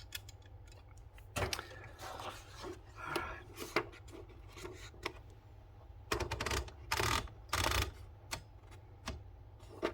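1970 Citizen X3 manual typewriter being handled as paper is fed in around the platen: scattered light clicks and several short rasping rubs, the longest two a little past halfway.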